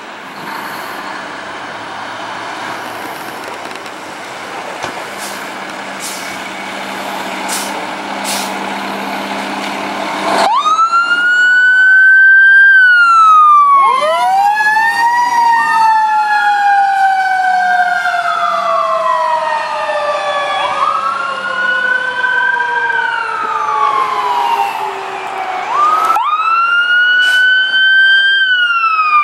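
A fire engine's diesel engine runs as the truck rolls out of the station, with a few short hisses. About ten seconds in, Whelen electronic sirens start on the wail tone, winding up and sliding slowly down in long cycles. Two sirens overlap from then on, and one winds up again near the end.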